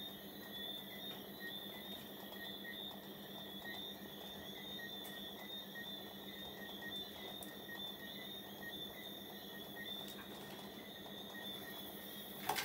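Faint night chorus of chirping insects: a steady high trill with regular chirps, over a steady low hum, and one sharp click near the end.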